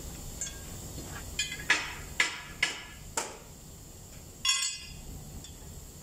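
Steel hand tools knocking against metal: a quick run of sharp metallic clinks, then a louder clank that rings briefly about four and a half seconds in.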